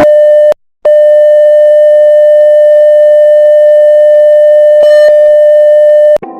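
Loud electronic emergency-alert tone: one steady pitch, sounded briefly, a short break about half a second in, then held unchanged for about five seconds before cutting off abruptly near the end.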